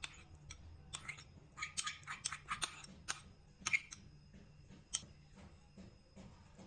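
Salad preparation sounds: a run of light clicks and crisp, crunchy bursts, busiest between about one and four seconds in, then a few scattered ticks.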